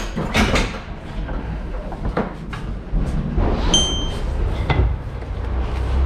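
Electric pallet truck being driven along a trailer floor: a low steady rumble with repeated clanks and knocks as it rolls and is steered, and a short high beep about four seconds in.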